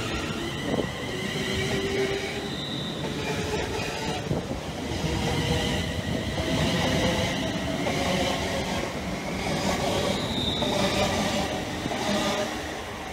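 LNWR Class 350 Desiro electric multiple unit moving along the platform: a steady rumble of wheels on the rails with several high-pitched squealing and whining tones over it. The sound fades in the last second as the rear coaches pass.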